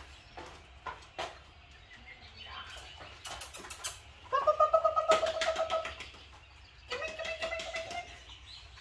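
A few quick hand claps, then two high-pitched, fluttering calls each a second or two long, coaxing a puppy to come.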